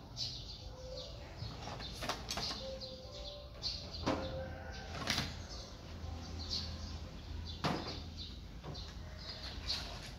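Packaging and kitchen utensils being handled: scattered light clicks and knocks with rustling in between, about eight sharp taps over ten seconds.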